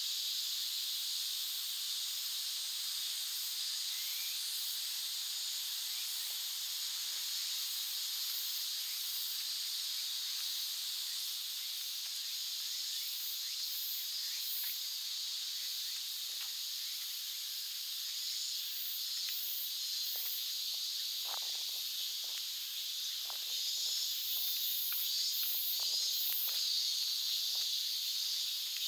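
A summer cicada chorus: a dense, steady, high buzzing hiss. Soft irregular footsteps join from about two-thirds of the way in, and the chorus grows a little louder near the end.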